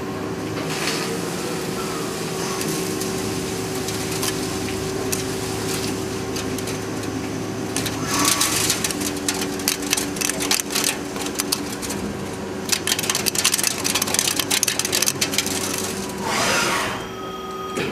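CyberTec UltraTurn UT250 CNC lathe running a cut: a steady hum from the spinning spindle under a hiss. From about eight seconds in, a dense, rapid crackle of clicks sets in, with brief swells of noise about halfway through and near the end.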